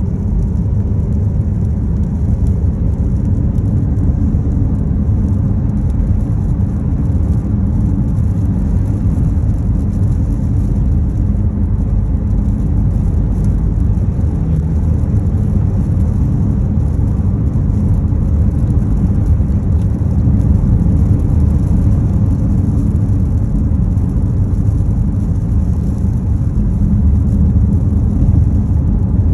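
A car driving: steady low rumble of engine and road noise, with no change in speed.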